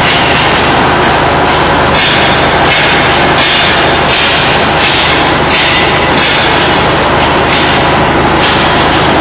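Loud, steady drone of heavy machinery, with a low engine-like hum under a hiss that swells about every 0.7 s.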